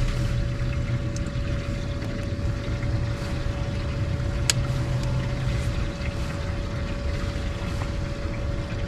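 A bass boat's motor humming steadily: a level, even tone over a low rumble, with one short click about halfway through.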